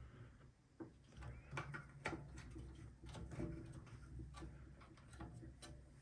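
Faint, scattered clicks and light metal knocks of a benchtop drill press being handled, as its belt-tension lock is loosened and the motor is moved on its mount, over a low steady hum.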